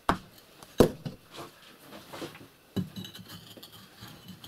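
Hand tool striking the brickwork of a masonry stove, knocking a brick loose so it can be pulled out: a sharp knock at the start, the loudest one just under a second in, another near three seconds, with lighter scraping and tapping between.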